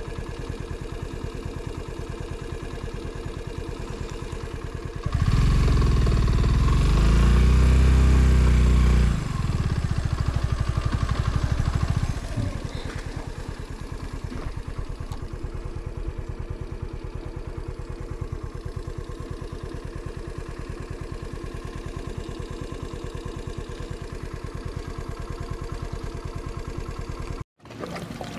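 Motorcycle engine running on the move, steady most of the time. A louder stretch comes a few seconds in, where the note rises and then falls. The sound cuts off suddenly near the end.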